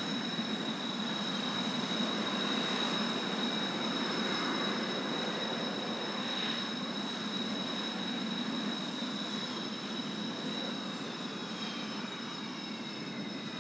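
Kawasaki T-4 jet trainers flying overhead: a steady jet rumble with a high turbofan whine, loudest a few seconds in and fading slowly. Near the end the whine falls in pitch as the jets pass and draw away.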